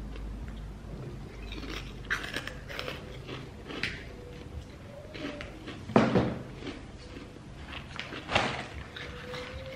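A person eating from a bowl: chewing and a fork clicking and scraping in the bowl, with two louder knocks a couple of seconds apart in the second half.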